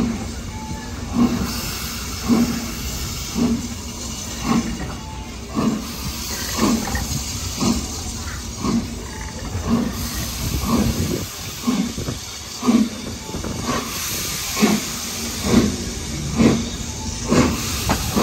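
BR Standard Class 4MT two-cylinder 4-6-0 steam locomotive 75078 working hard up a steep gradient as it pulls away from the station. Its exhaust chuffs come about once a second and gradually quicken, over a steady hiss of steam.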